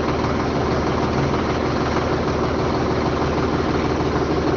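Tractor diesel engine idling steadily.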